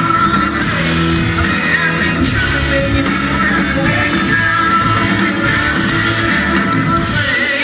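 Rock band playing live, loud, with guitars over bass and drums, recorded from the audience in a club.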